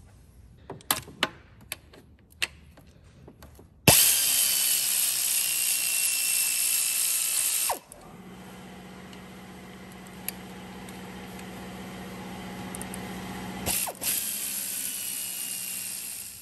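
Power ratchet with a 12 mm socket running out intake manifold bolts. A few light clicks as the socket is fitted, then the tool runs loud for about four seconds as the bolt breaks free. It then runs more quietly with a steady hum for most of the rest, with a brief louder spurt near the end.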